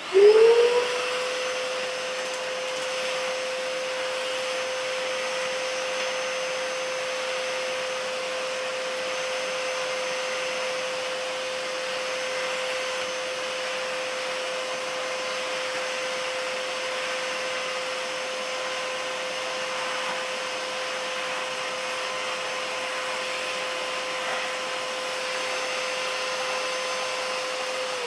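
2B 18-litre wet and dry shop vacuum switched on, its motor spinning up to speed within about a second and then running with a steady whine over a rushing hiss of air, drawing sawdust up through the floor brush.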